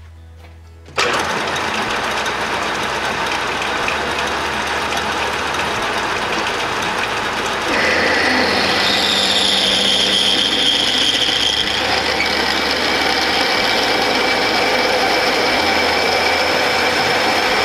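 Atlas metal lathe starting up about a second in and running steadily. Near the eight-second mark a twist drill in the tailstock bites into the spinning metal workpiece, and the sound grows louder with a steady high whine as it cuts and smokes. The drill is cutting unevenly, one flute throwing ribbons and the other a different kind of chip, which the machinist takes for a damaged or duller cutting edge.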